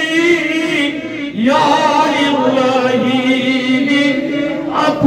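A man's voice chanting in long, held melodic phrases with a slight waver. A new phrase begins about a second and a half in and another near the end.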